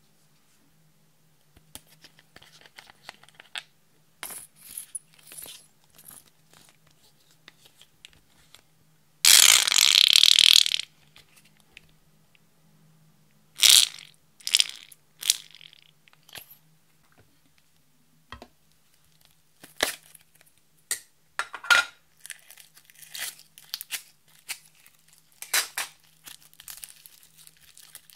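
Hands handling makeup and small decorations in trays of slime make scattered small clicks, taps and scrapes. One loud crackling crunch lasts about a second and a half, some nine seconds in. Near the end, purple foam-bead slime being squeezed gives off dense small crackles.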